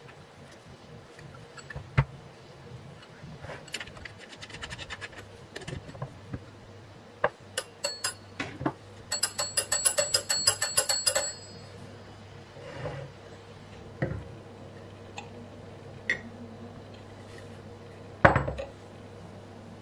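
Telephone bell clapper rattled by hand against twin metal gongs, with no line current to drive it: short jingles, then a rapid ringing trill of about two seconds near the middle. Separate knocks of handling the bell set come before and after, one sharp knock near the end.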